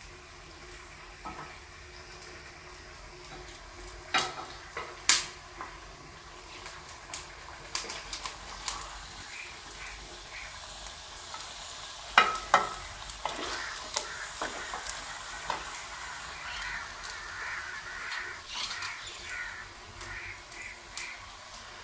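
Beef pieces frying in a metal karahi, stirred with a metal spatula: a low sizzle under scrapes and sharp clinks of the spatula against the pan, the loudest clinks a few seconds in and around the middle.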